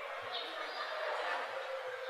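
Soft village morning ambience: an even background hiss with one short bird chirp about a third of a second in.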